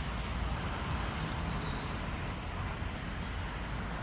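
Steady outdoor road traffic noise, a continuous rumble of passing vehicles.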